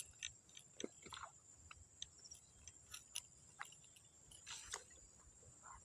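Faint, irregular clicks and light taps, a dozen or so, over a steady thin high-pitched hiss.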